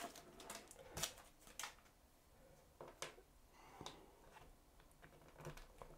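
Near silence broken by a handful of faint, short clicks and taps: a small plastic figure and its clear plastic stand being handled on a tabletop.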